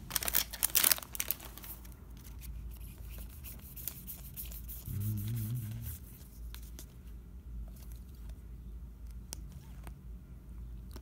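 Foil trading-card pack wrapper crinkling and tearing open for about the first second, then soft clicks and rustles of cards being flipped through a stack. A brief low hum of about a second comes in around five seconds in.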